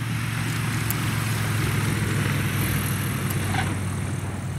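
Cessna TR182 Turbo Skylane RG's turbocharged six-cylinder piston engine and propeller running as the plane rolls along the runway. A steady low drone swells about two seconds in, then fades as the plane moves away.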